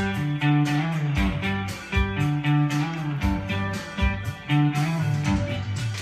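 Acoustic guitar strummed in a steady country rhythm, with chords changing about every second and no singing: an instrumental break between verses.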